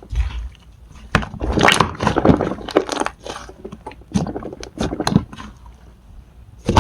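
Slime being squished and pressed by hand, giving a run of irregular crackling clicks and pops.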